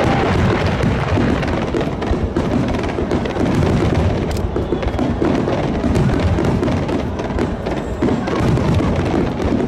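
Aerial fireworks bursting in quick succession: a dense, unbroken run of low booms and crackles.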